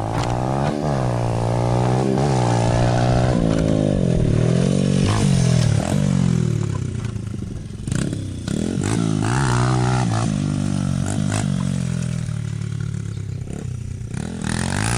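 Dirt bike engine revving up and dropping back several times as the rider accelerates and shifts. It runs lower and steadier over the last few seconds.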